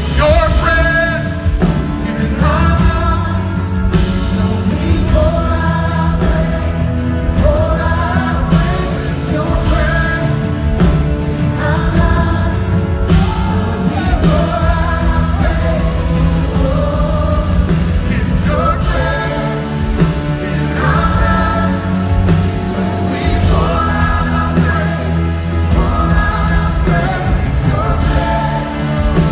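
Live contemporary worship music heard through a church's PA system: a vocalist singing over a full band with a strong, steady bass.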